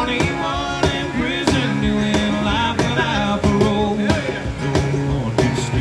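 Live acoustic country music: an acoustic guitar strummed, with a cajon and hand shakers keeping a steady beat and a man singing.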